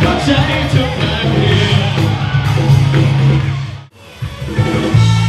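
Loud live band music with a man singing into a microphone. About four seconds in the sound drops out for an instant, then the music starts again.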